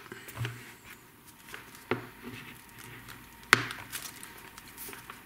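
Handling noise from multimeter test leads and probes being picked up and moved over a desk, with two sharp knocks about two and three and a half seconds in.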